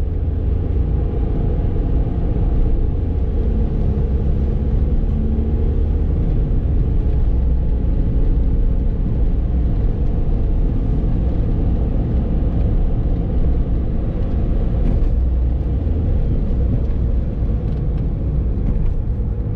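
Steady low rumble of road and engine noise inside a car cabin while driving.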